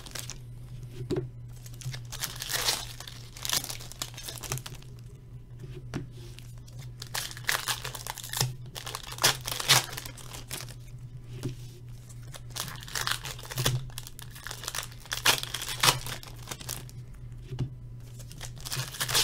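Plastic wrapping crinkling and tearing in irregular bursts as a sealed hobby box of hockey cards is unwrapped and opened, over a steady low electrical hum.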